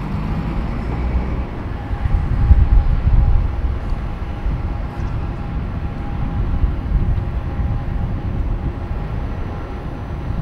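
Electric tram at a stop, with a steady electrical hum from its equipment over a low rumble that swells about two to three seconds in.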